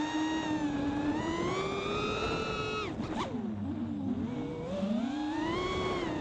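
FPV racing quadcopter's brushless motors whining, pitch rising and falling with the throttle. About three seconds in the throttle is chopped and the whine falls away to a low warble, then the motors spool back up to a steady whine about five seconds in.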